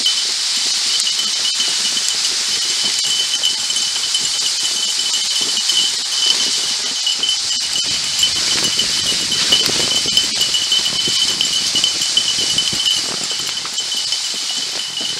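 Kicksled runners hissing over snow and the sled frame rattling as the dogs pull it along, with a thin, steady high-pitched ring throughout.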